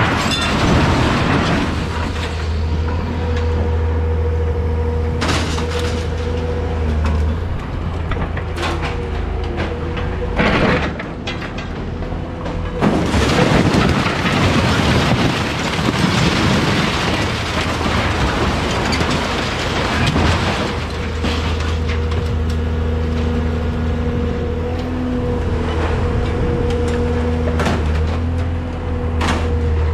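Engine of a hydraulic grapple loader running steadily, with a hydraulic whine that comes and goes as the grapple works. Scrap metal knocks several times and crashes and clatters loudly in the truck's bed around the middle.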